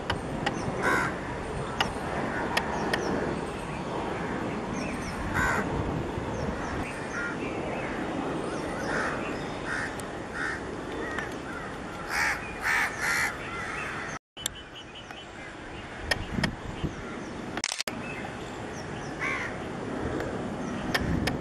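Crows cawing repeatedly, short harsh calls at intervals, over a steady background rumble. The sound cuts out for a moment about two-thirds of the way through.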